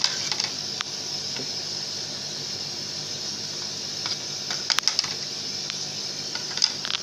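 VOIERN 4060 50 W CO2 laser cutter running a cut, with its air compressor and pump on: a steady hiss with a few short sharp clicks.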